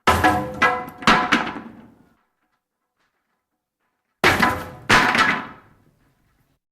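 A run of sharp knocks on something hard that rings with clear pitched tones after each blow: four strikes in quick succession, a pause of about two seconds, then two more, each ring fading within about a second.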